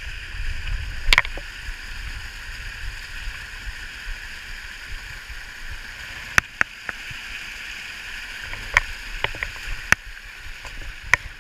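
Strong wind buffeting the microphone with a low rumble over a steady rushing hiss, broken by a handful of sharp clicks.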